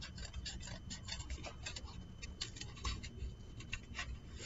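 Scissors cutting thin white cardboard: a quick, irregular series of snips.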